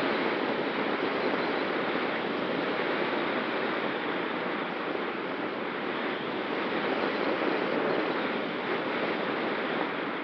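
Steady rushing of airflow over a camera mounted on a glider's wing in flight, with a faint steady tone underneath.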